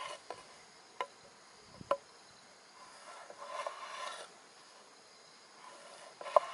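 Cleaver chopping vegetables on a wooden board: sharp knocks of the blade on the wood, three in the first two seconds and one more near the end. In between, an insect buzzes past twice.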